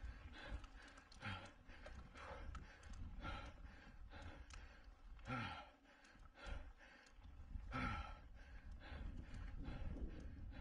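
A mountain bike racer breathing hard under full race effort, with a loud, heavy exhale every one to two seconds over a low rumble.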